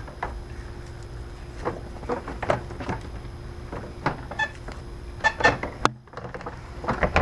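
Scattered knocks and clatter of parts being handled as the radiator fan assembly is pulled out of the engine bay, with a few short metallic clinks around the middle.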